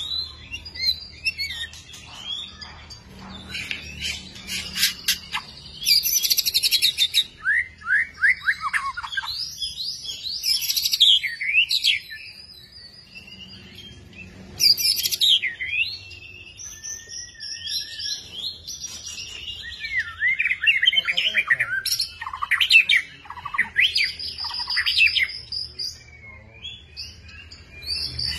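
Long-tailed white-rumped shama singing: a long, varied song of clear rising and falling whistles, rapid trills and harsh rattling phrases, delivered in bursts with short pauses between them.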